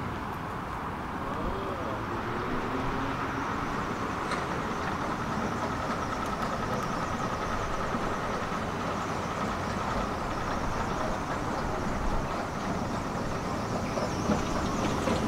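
Tram running along the rails through the station: a steady rumble with a faint whine for a few seconds in the middle, growing a little louder near the end.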